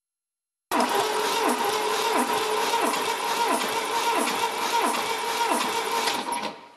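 Starter motor cranking a Volvo P1800E's B20 four-cylinder engine with the spark plugs out, for a compression test. It is a steady whine that starts sharply, with a drop in pitch about every 0.7 s as the gauged cylinder comes up on compression, about eight pulses, and stops near the end. That cylinder builds 13.5 bar, about right for a high-compression engine.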